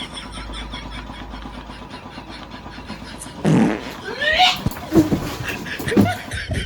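Recorded fart sound effects played through a Bluetooth speaker: a long loud fart about three and a half seconds in, followed by shorter sputtering farts about a second and two seconds later. A steady low hum is heard before them.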